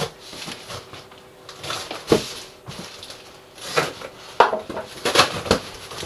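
Cardboard shipping box being opened by hand: packing tape cut with a utility knife and torn, and the cardboard flaps pulled back. It comes as a series of short rips and scrapes, loudest about four to five and a half seconds in.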